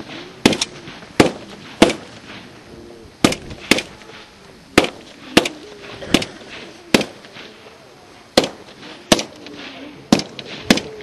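Rifles firing single shots in an irregular string, about fifteen cracks, one every half second to a second and a half: a fire team keeping up suppressive fire on an enemy position in an infantry section attack drill. Faint shouted voices come between the shots.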